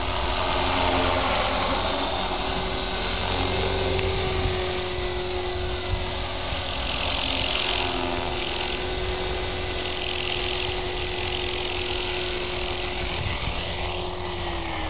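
EXI 450 electric RC helicopter flying, with the high whine of its motor and gears over the buzz of the rotor. The sound holds steady, then drops in pitch near the end.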